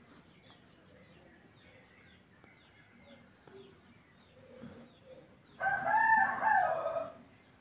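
A rooster crowing once: one loud pitched call about a second and a half long, starting about five and a half seconds in. Faint bird chirps come before it.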